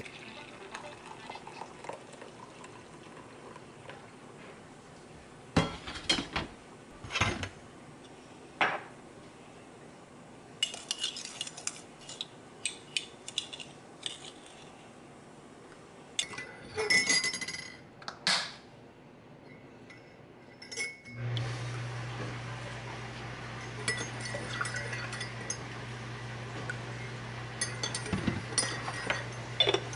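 Dishes and cutlery clinking and knocking as kitchen items are handled and put away, in scattered separate knocks. About two-thirds of the way through, a steady low hum with a hiss starts and runs under further clinks.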